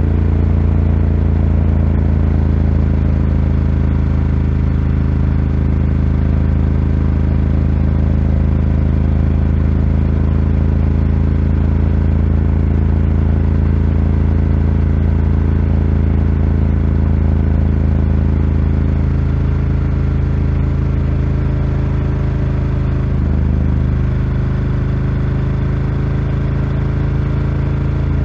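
Ducati Scrambler 1100's air-cooled L-twin engine, breathing through a Termignoni exhaust, running at a steady cruise while riding. The note holds steady, with a brief change in throttle near the end.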